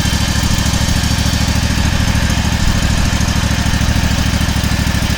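Toro riding lawn mower's engine idling steadily with an even, regular putter.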